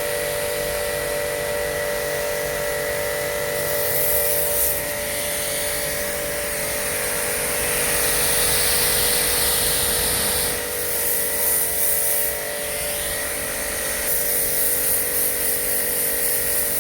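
Electric pressure washer running with a steady motor hum, its water spray hissing louder in several stretches as the jet is worked.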